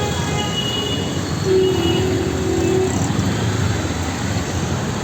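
Busy street traffic: a steady wash of engine and tyre noise, with a vehicle horn held for about a second and a half near the middle. Thin high squeals sound briefly early on.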